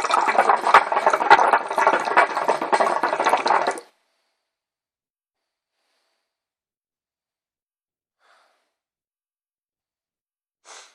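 Hookah water base bubbling as smoke is drawn through it on a drag: a dense gurgle of bubbles for about four seconds that stops abruptly.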